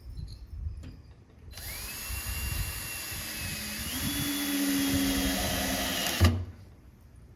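Cordless screw gun driving a drywall screw into plywood: the motor starts about a second and a half in and runs for nearly five seconds, its whine stepping higher partway through, then stops abruptly with a thump.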